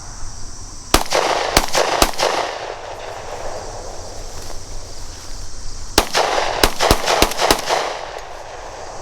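Semi-automatic gunfire: three shots about half a second apart, then after a pause of about four seconds a quicker string of five or six shots. Each shot leaves a lingering echo, over a steady chirring of crickets.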